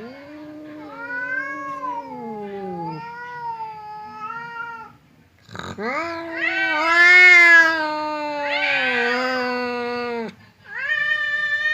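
Domestic cats yowling at each other in long, drawn-out caterwauls, the aggressive standoff yowling of cats squaring up to fight. There are three long yowls: the first falls in pitch, the second, starting about halfway in, is the loudest and turns harsh near its end, and a third begins near the end.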